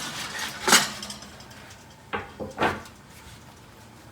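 Short scrapes and knocks of a wooden bread peel and the oven shelf as loaves are slid into a home oven: a loud scrape under a second in, then three shorter knocks a little after two seconds.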